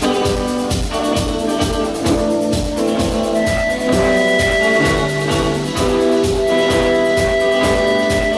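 Music with a steady drum beat, about two beats a second, under held instrumental notes.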